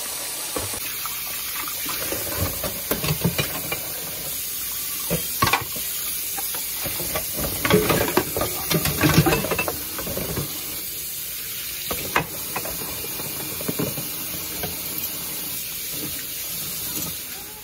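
Kitchen tap running steadily into a stainless steel sink as dishes are rinsed, with plates and containers clinking and clattering now and then, most busily about halfway through.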